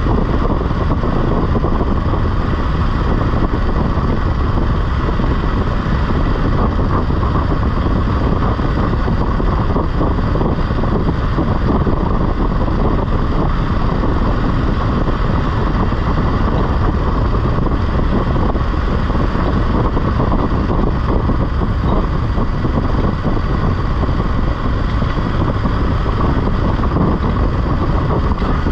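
BMW F 850 GS motorcycle on the move at a steady pace: constant wind rush over the microphone with the engine running underneath, without let-up.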